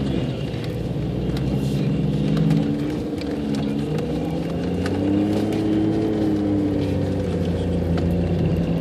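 Jeep engine running, heard from inside the cab as it climbs over sand mounds, its pitch rising and falling with the throttle about halfway through. Scattered short knocks and rattles from the bouncing vehicle.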